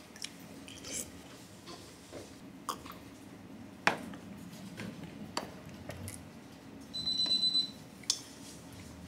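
Faint clinks and light knocks of cutlery, a plate and a drinking glass on a restaurant table, with a brief high-pitched pulsing tone about seven seconds in.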